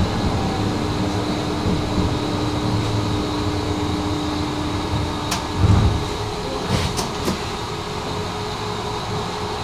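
Tram running along its line, heard on board: a steady low rumble of wheels on rail with a thin steady electric whine above it. A little past halfway comes a low thump, then a few sharp clicks in quick succession.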